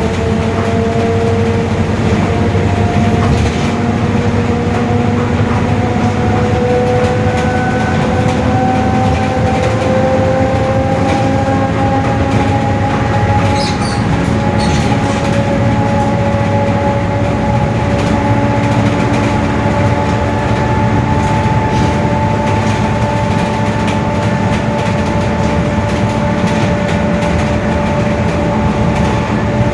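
Mercedes-Benz OF-1721 bus's rear differential whining very loudly while driving, over steady engine and road rumble. The whine has two tones that climb slowly in pitch.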